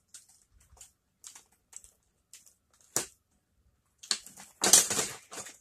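Thin plastic packaging tray clicking and crackling as hands pry a toy ambulance out of its moulded slot: scattered light clicks, one sharp click about three seconds in, then a louder burst of crackling and scraping near the end.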